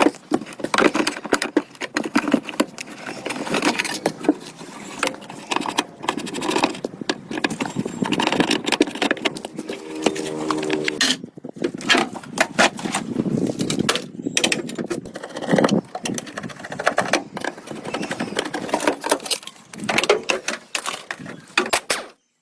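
Irregular, rapid knocking and clattering of restoration work on metal, with a brief pitched whine a little before the middle.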